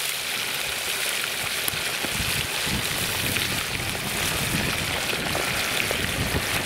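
Small fish deep-frying in a cast-iron kazan of hot oil: a steady, dense sizzle and crackle of bubbling oil around freshly added fish.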